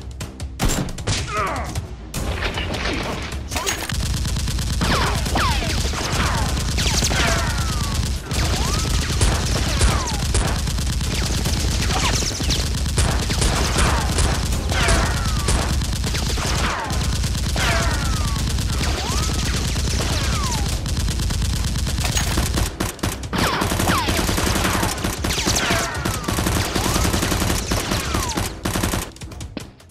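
Rapid automatic-gunfire sound effects, firing in long continuous bursts, with short falling whines repeating over them and a steady low beat of background music underneath.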